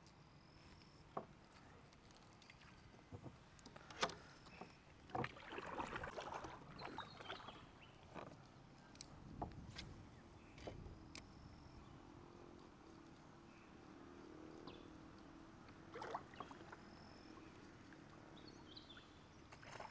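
Faint handling noises: scattered clicks and knocks, with a stretch of louder rustling about five to eight seconds in, over a quiet background.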